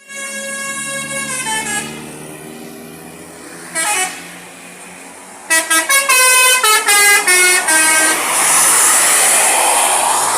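Tour bus's telolet horn, a Basuri multi-tone air horn, playing a run of notes stepping down in pitch, a single short toot about four seconds in, then a fast melody of horn notes. Near the end the horn gives way to a loud rushing noise.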